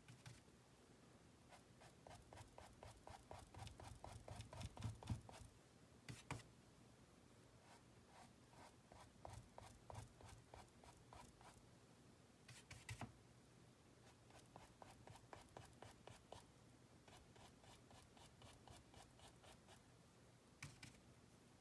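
Faint, quick strokes of a half-inch flat brush flicking acrylic paint onto a stretched canvas, coming in short runs of several strokes a second, with a couple of sharper taps.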